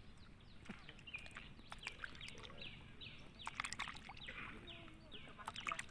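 Birds chirping faintly, a steady stream of short, falling calls, with a few light clicks mixed in.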